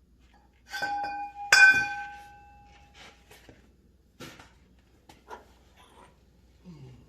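Two sharp metal clanks about a second in, the second the loudest, each ringing briefly with a clear tone, followed by a few lighter knocks and clicks: steel tools striking against metal.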